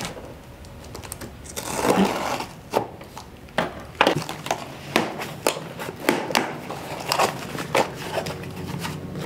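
Small cardboard parts box being opened by hand: a short rasp of cardboard about two seconds in, then a run of irregular sharp taps and clicks as the flaps and box are handled.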